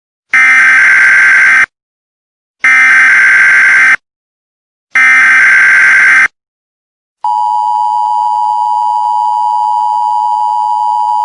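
Emergency Alert System SAME header: three loud bursts of digital data noise, each about a second and a half long, with short gaps between them. About seven seconds in, the steady two-tone EAS attention signal begins.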